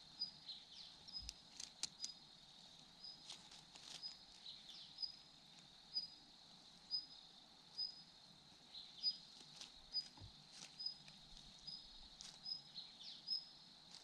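Faint woodland ambience: a steady high insect drone, a short high chirp repeating about once a second, and scattered light ticks and rustles.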